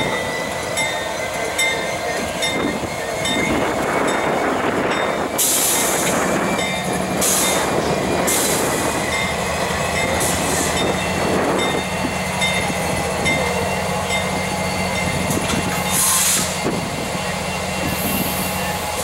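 Lead diesel locomotives of a CSX freight train rumbling steadily past at low speed, their engines droning with a low hum, with several short hisses of noise along the way.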